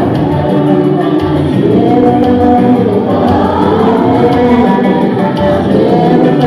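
Loud music with singing, playing without a break.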